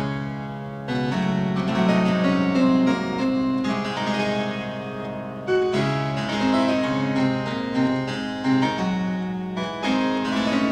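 Background classical keyboard music: a run of piano-like notes over held lower notes.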